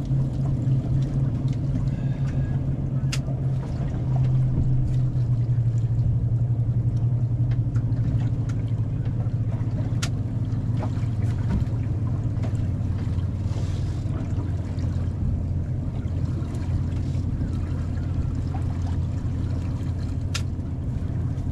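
Steady low drone of a motorboat engine, with scattered small clicks and taps over it.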